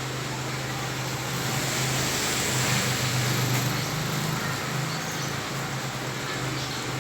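Heavy rain falling on a flooded street, a dense steady hiss over a low hum, with a passing vehicle swelling the sound from about two to four seconds in.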